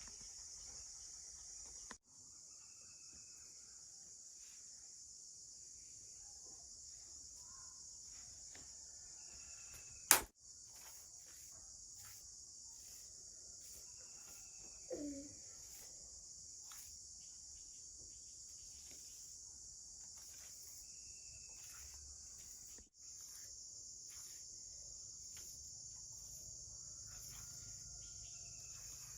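Steady high-pitched chorus of insects such as crickets, with a single sharp click about ten seconds in and a short, faint mid-pitched sound a few seconds later.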